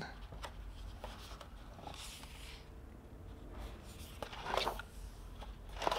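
Faint rustling of paper pages in a spiral-bound manual as a hand slides over and leafs through them, with a couple of slightly louder rustles near the end.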